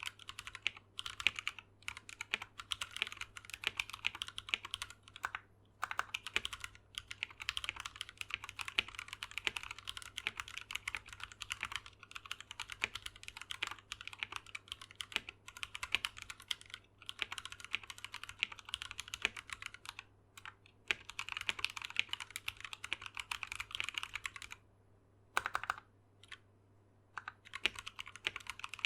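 Mechanical keyboard typed on quickly and continuously, a dense stream of keystroke clacks. Near the end the typing pauses for a few seconds, broken by a single keystroke, then resumes.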